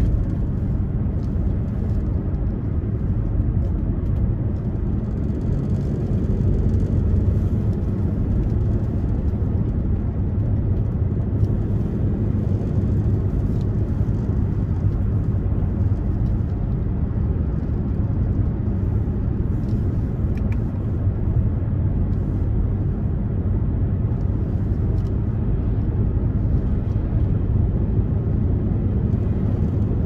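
A car driving at steady road speed, heard from inside the cabin: a constant low rumble of engine and tyre noise.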